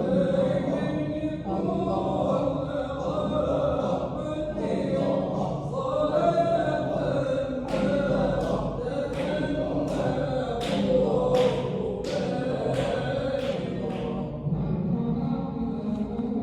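Group dhikr chanting at a Shadhili Sufi hadra: many voices chanting together without instruments. From about halfway, sharp breathy accents come in a regular beat, roughly three every two seconds, for several seconds, then fade.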